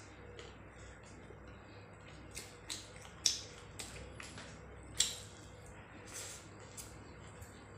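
Close-miked eating sounds of rice and curry eaten by hand: a run of short wet clicks and smacks, loudest about three and five seconds in.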